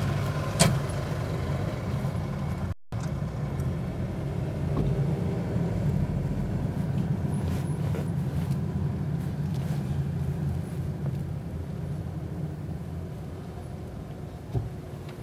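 Steady low engine and road rumble heard from inside a moving car, with a sharp click about half a second in and a single knock near the end.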